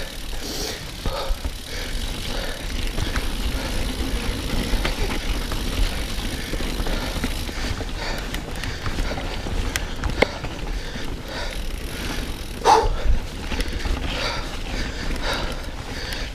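Mountain bike being ridden over a wet trail: a steady low rumble of wind on the microphone with the noise of tyres on the ground and scattered clicks and knocks from the bike. About 13 seconds in there is one brief, louder sound.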